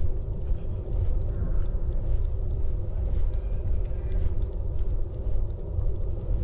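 Wind buffeting the action camera's microphone: a continuous low rumble that flutters rapidly in loudness.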